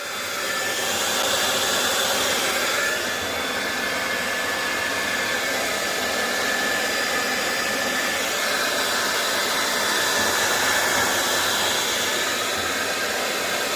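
Hair dryer blowing steadily with a faint high whine, drying out the inside of a boiler that got wet from a leaking condensate pipe.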